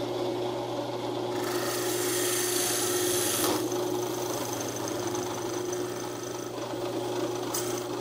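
Drill press running with a 3/8-inch plug cutter boring down into the end of a small hardwood blank to cut a round tenon. A steady motor hum runs under a rasping cutting noise that is loudest from about one and a half to three and a half seconds in.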